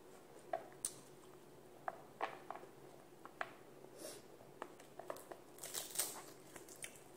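Faint, scattered small clicks and smacks of someone eating by hand, fingers mixing rice and sautéed pechay on a plate, bunching more closely near the end.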